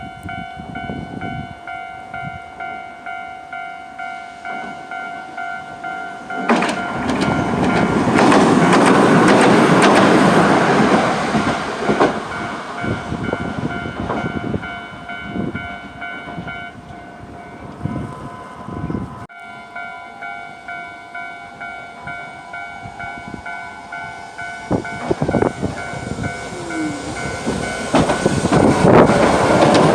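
Japanese level-crossing alarm ringing with its steady, fast-repeating electronic clang while a Hiroden train runs over the crossing, its wheels rumbling loudest about 7 to 12 seconds in. The alarm stops about 17 seconds in, starts again after a break, and a second train comes up loudly near the end.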